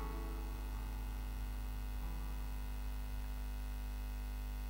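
Steady low electrical hum from the church sound system, with soft sustained keyboard chords faintly underneath; a new chord comes in about two seconds in.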